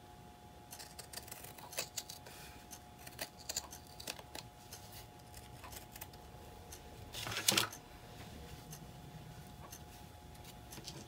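Scissors cutting painted fabric: scattered short snips and blade clicks, with one longer, louder cut about two-thirds of the way through.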